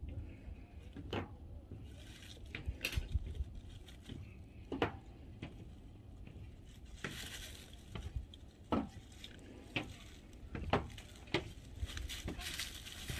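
Quiet, scattered crackles and short rustles of dry fallen leaves being stirred and crunched, a dozen or so separate crackles with a couple of longer rustles.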